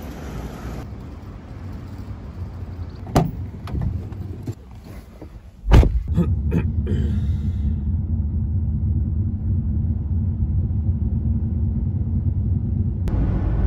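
A car driving, heard from inside the cabin as a steady low road and engine rumble. It is preceded by a few sharp knocks, the loudest about six seconds in.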